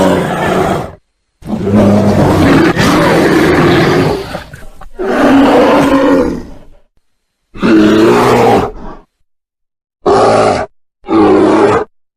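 A bear roaring and growling in a series of six separate calls, each lasting from under a second to about three seconds, cut apart by dead silence. The later calls are shorter.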